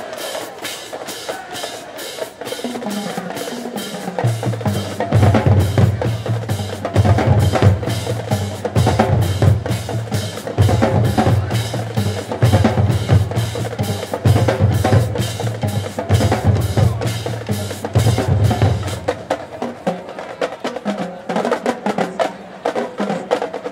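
Marching band drumline playing a fast cadence on snare, tenor and bass drums. The bass drums come in about four seconds in and drop out a few seconds before the end.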